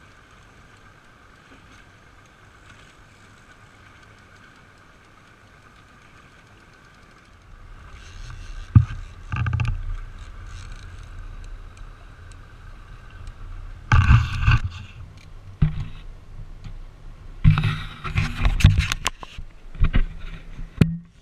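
Sportfishing boat noise: a faint steady hum with a thin high whine at first, then, from about seven seconds in, a louder low rumble broken by several loud bursts.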